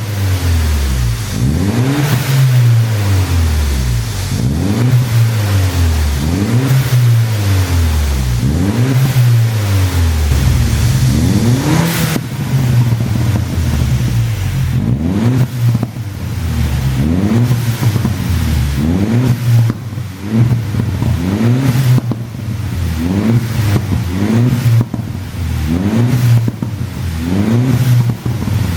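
BMW-era Mini Cooper S turbocharged four-cylinder engine, tuned for exhaust pops, blipped over and over, about three revs every four seconds. Each rev rises and falls back with sharp pops and crackles from the exhaust on the overrun.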